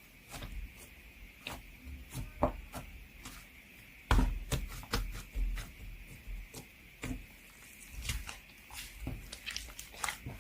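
Hands pressing, poking and folding a whipped-cream (saengkrim) slime, giving irregular soft clicks, pops and pats, with a denser run of them about four seconds in.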